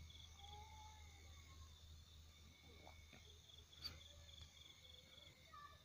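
Near silence: a faint low hum under a faint, high, evenly pulsing chirp.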